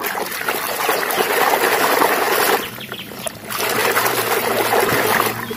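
Water sloshing and splashing as a hand scrubs a toy car around in a plastic tub of soapy water, in two spells with a short pause about halfway through.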